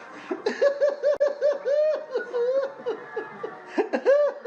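Laughing sound effect: a person laughing in a rapid string of short, high-pitched syllables.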